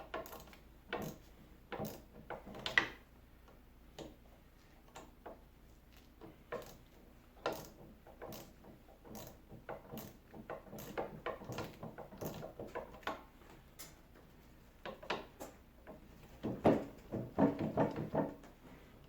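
Wrench on the nut of a new shear bolt in a snowblower auger: irregular small clicks and metal clinks as the lock nut is tightened, with a louder flurry of them near the end.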